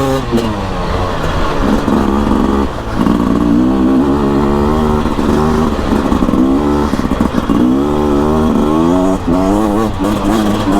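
Beta RR 300 single-cylinder two-stroke enduro engine under way, its revs climbing and dropping again and again as the throttle is worked through the gears.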